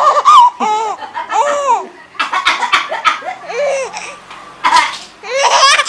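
A baby laughing in a run of short, high-pitched bursts, about seven in all, with brief pauses between them.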